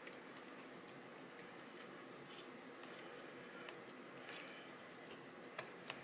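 Faint, scattered small clicks and light taps of hands handling the plastic parts and cables of an opened laptop, over quiet room tone.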